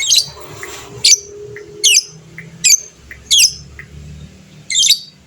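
Fighter lovebird calling with loud, shrill, sharp chirps, about six of them, each under a second apart, with a short pause before the last.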